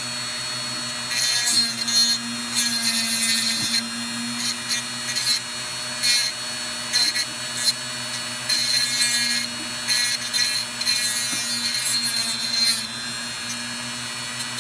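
Dremel rotary tool running steadily, with about eight short spells of high-pitched grinding as the bit is touched to a dogface puffer's overgrown dental plates to file them down.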